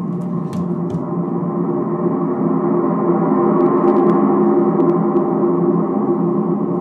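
Sustained ambient music drone with gong-like ringing tones, swelling slightly in the middle.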